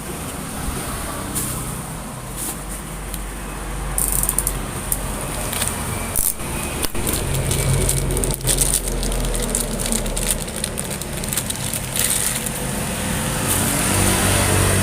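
Plastic clicks and crackling as a black ink bottle's seal and cap are worked open by hand, over a steady low rumble.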